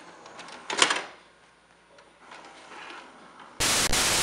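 A VHS cassette goes into a Sharp VCR with a clunk about a second in, followed by faint whirring and clicking from the loading mechanism. Near the end, loud, even TV static hiss comes on.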